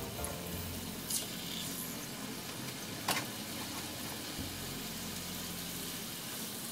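Thin slices of marinated beef sizzling steadily in hot oil in a frying pan, with two short sharp clicks about one and three seconds in.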